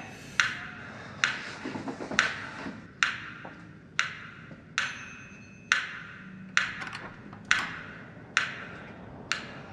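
Slow, evenly spaced sharp ticks, a little under one a second, each dying away briefly, with faint high ringing tones about halfway through.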